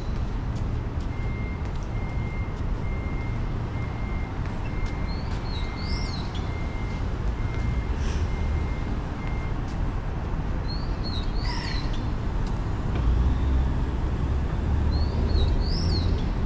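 City street ambience: a steady low rumble of traffic, with a run of short, evenly spaced electronic beeps at one pitch for the first nine seconds or so. A short rising chirp phrase, from a bird or a crossing signal, repeats three times.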